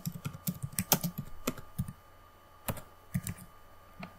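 Typing on a computer keyboard: a quick run of keystrokes for about two seconds, then a pause broken by a few single clicks.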